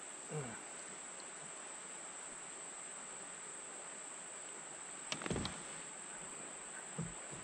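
Steady, high-pitched insect chorus of crickets or cicadas-like singing insects. A short cluster of knocks and clicks comes about five seconds in, with a smaller knock near the end.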